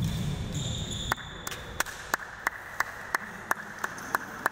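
One person clapping at an even pace, about three claps a second, starting about a second in. Before the clapping there are heavy footwork sounds on the court floor and a brief high squeak.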